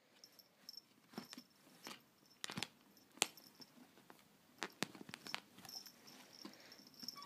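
Scattered light clicks and knocks of a kitten batting and scrabbling around inside a cup holder, with a faint high whine coming and going.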